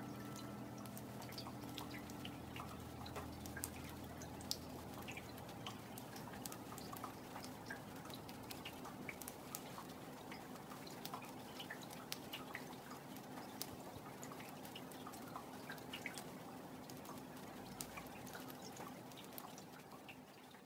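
Raindrops falling into still pond water: irregular light drips and plinks, one after another, over a soft steady patter, fading away at the very end.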